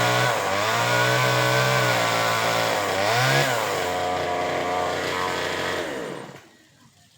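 Chainsaw cutting through a mango tree branch, its engine pitch sagging and rising as it works, then falling away and stopping about six seconds in.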